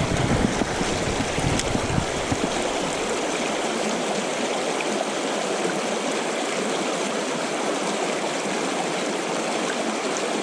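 River water flowing steadily. There is some low rumbling in the first couple of seconds.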